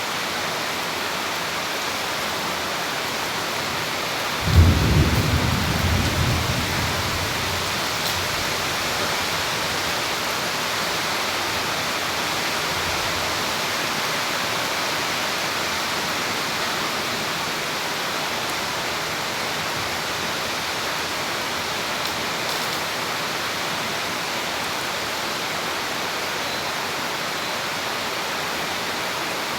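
Heavy rain pouring steadily, with one sharp clap of thunder about four and a half seconds in that rumbles away over the next two seconds.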